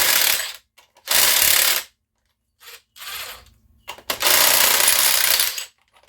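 Power drill with a socket running in short bursts on a Tecumseh small engine's flywheel nut, working to break it loose. Three strong bursts and one weaker short one, with pauses between.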